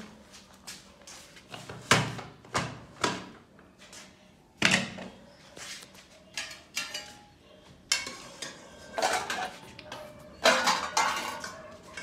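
A metal spoon clinking and scraping against a metal cooking pot and a steel plate as food is served out: a string of sharp, irregular clanks, some ringing briefly.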